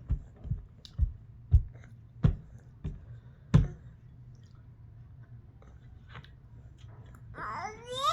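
Close-up chewing: a sharp chewing click about every half second for the first three and a half seconds, then a pause. Near the end a baby starts to whine with a high, wavering cry.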